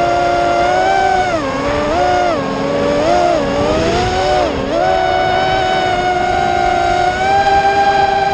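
Brushless motors of a 210-size FPV quadcopter whining in flight, several close pitches moving together with throttle. They dip and rise several times in the first half, then hold steadier and a little higher.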